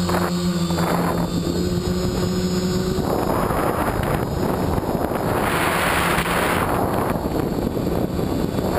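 Quadcopter motors and propellers buzzing at a steady pitch, recorded from a camera on the craft itself. About three seconds in the buzz is swamped by a rush of wind noise that is loudest around six seconds, then eases.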